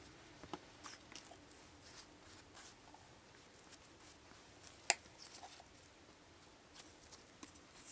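Faint handling sounds of sandwich making: soft taps and rustles as slices of white bread are set on a wooden cutting board and worked with a spatula, with one sharp click about five seconds in.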